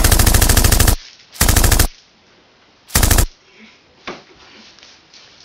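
Machine-gun sound effect: rapid automatic fire for about the first second, then two short bursts a second and a half apart.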